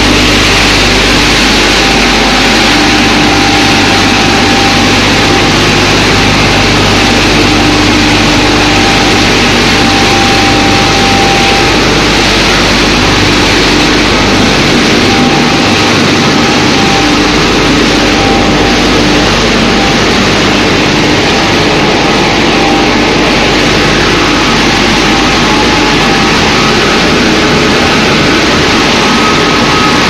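Machinery of a running wood pellet production line: loud, steady machine noise with several constant humming tones.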